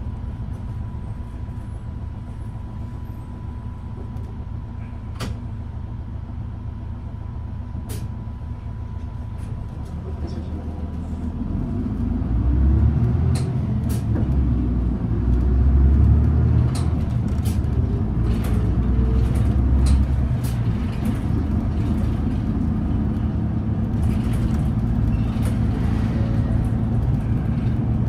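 City bus engine idling, heard from inside the passenger cabin, with a thin steady tone above it. About eleven seconds in the bus pulls away: the engine grows louder and heavier as it accelerates, then settles to a steady run. Scattered sharp clicks and rattles are heard throughout.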